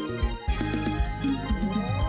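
Electronic music with a steady bass-drum beat and pitched synth notes; a rising synth sweep starts near the end.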